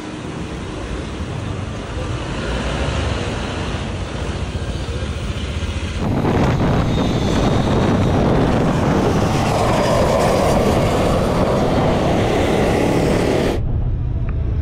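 Vehicle and road noise: a steady rumble and hiss that gets louder about six seconds in and changes abruptly near the end.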